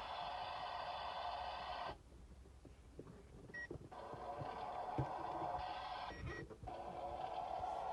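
Toy kitchen stove's electronic sound effect: a steady hiss from a small speaker that cuts off about two seconds in and starts again about two seconds later. Light plastic clicks and a couple of short beeps come between.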